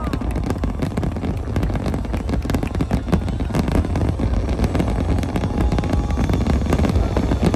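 Aerial firework shells bursting in a rapid, unbroken barrage: dense overlapping bangs and crackling over a continuous low rumble.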